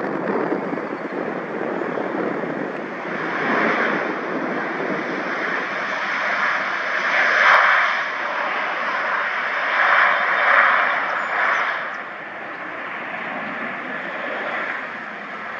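Airplane engines making a loud, steady rushing noise that swells and eases several times, loudest around the middle, then settles a little lower near the end.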